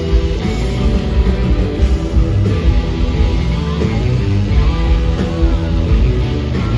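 Live blues-rock band playing loud: two electric guitars with bending notes over drums and bass.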